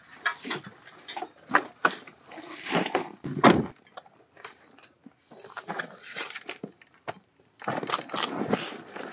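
Clicks, clinks and rustles of gear being handled, in quick irregular bursts. There is a brief high hiss about five seconds in, and the clicking and rustling starts again near the end.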